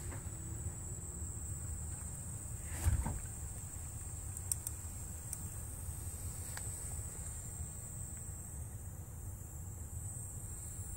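Steady low outdoor rumble with a thin high-pitched hiss over it, one sharp thump about three seconds in and a few faint clicks later.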